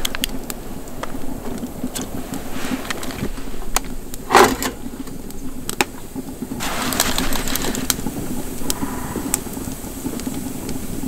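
Wood fire crackling in a small wood-burning stove, with scattered sharp pops over a steady low hum. A brief louder sound comes about four seconds in, and a wider hiss from about six and a half seconds.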